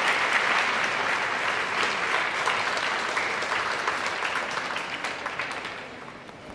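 Audience applauding in an ice rink, with single claps standing out, thinning out and dying away over the last couple of seconds.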